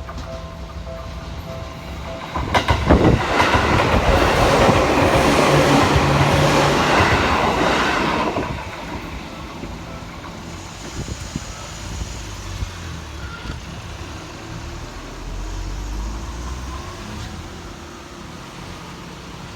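Seibu Tamagawa Line electric train passing over a level crossing. The crossing's warning bell rings in a pulsing tone at the start. The wheels clatter over the crossing about two and a half seconds in, then a loud rush lasts about six seconds before dying away to a low rumble.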